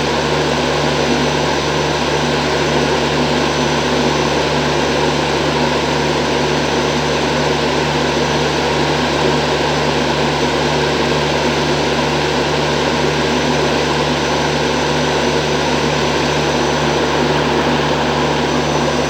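WAG-9 electric locomotive's 'generator sound': a loud, unchanging machine drone with a steady low hum underneath.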